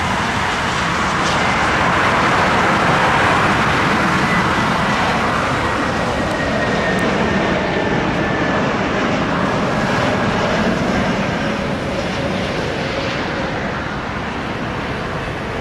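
Jet engines of a Lufthansa Airbus A320neo-family airliner on final approach with its gear down: a steady rush of engine noise with a faint high whine that drifts slightly lower in pitch. It is loudest a few seconds in and slowly fades.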